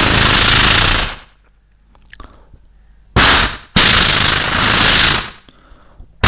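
A man imitating a minigun by mouth: dense, continuous bursts of imitated rapid fire. One burst stops about a second in, a short one comes around three seconds in, and a longer one follows straight after. Short breaths fill the gaps, and a new burst starts at the very end.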